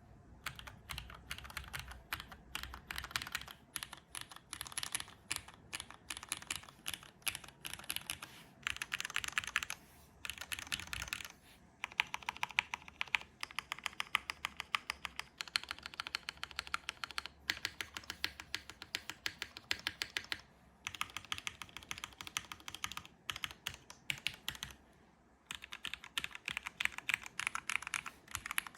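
Typing on a Novelkeys NK87 aluminum-case mechanical keyboard with lubed Cherry MX Black linear switches, an aluminum plate and GMK keycaps: fast runs of keystroke clacks, broken by a few short pauses.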